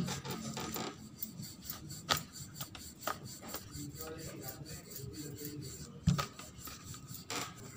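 Wooden rolling pin rolling dough thin on a stone counter: a continuous rubbing and rolling, with a few light knocks of the pin, the loudest about six seconds in.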